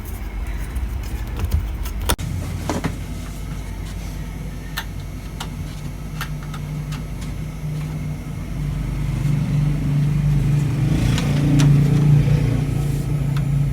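Steady low electrical hum from an LED TV's speaker with no programme audio coming through, with scattered clicks and taps; the hum grows louder about eight seconds in. The hum is the TV's no-sound fault.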